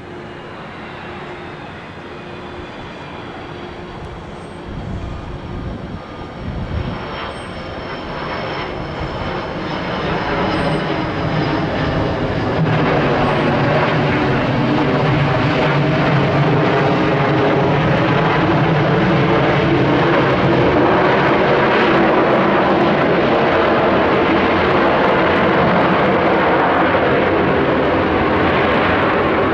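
Jet engines of a rear-engined McDonnell Douglas twin-jet airliner on the runway. The roar builds over the first dozen seconds, then holds loud and steady. A faint high whine is heard in the first part.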